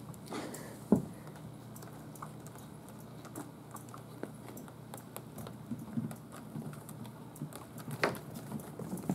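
Kittens scampering and wrestling on a wooden floor and cat trees: light, irregular patter of paws with scattered clicks and bumps, and a sharp knock about a second in and another near the end.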